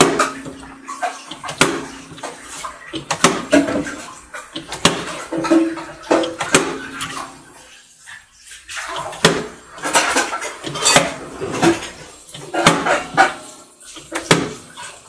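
Part-filled plastic water bottle repeatedly flipped and landing on a glass tabletop, a hard knock with water sloshing inside at each landing, about once a second or so.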